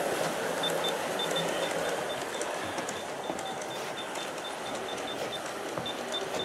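G-scale model train running: the steady whir of the locomotive motors and wheels rolling on the track as the long train passes. A rapid string of short high-pitched pips runs over it.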